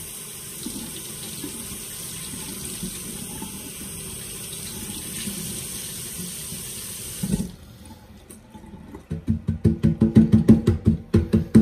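Kitchen tap running as artichokes are rinsed under it, shut off about seven and a half seconds in. Then comes a fast run of short knocks, several a second, which is the loudest part.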